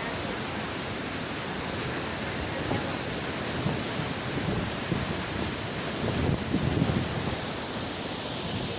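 Waterfall rushing steadily, a heavy flow of falling water, with wind buffeting the microphone in a few low gusts about six to seven seconds in.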